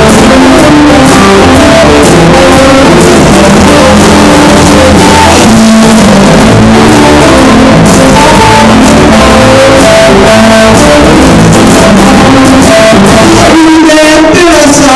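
Rock band playing an instrumental passage, electric guitar to the fore over bass and drums, very loud throughout.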